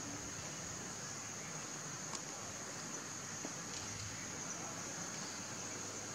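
Outdoor ambience dominated by a steady, high-pitched insect drone, with a few faint ticks.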